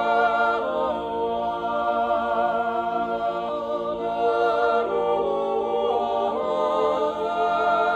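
Six men's voices singing an Appenzell Zäuerli, a wordless natural yodel, a cappella: long held chords, with the voices sliding together into new chords several times.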